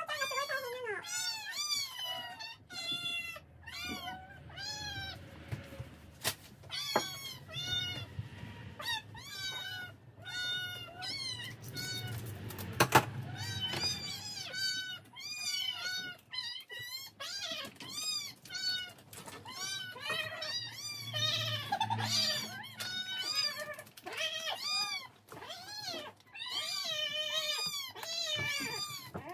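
Domestic cats meowing over and over, many short rising-and-falling calls that sometimes overlap, begging for food as their bowls are filled. A single sharp click sounds about halfway through.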